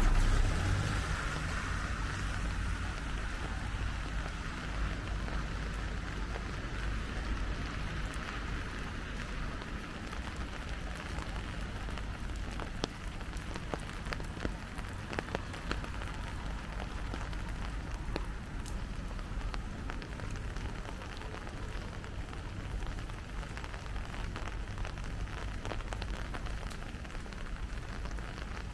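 Steady rain falling on a city street, with scattered sharp ticks of drops landing close by. A low rumble fades out in the first second or so.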